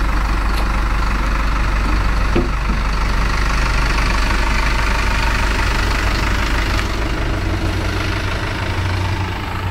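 Steady low hum of an idling engine, with one short knock about two and a half seconds in.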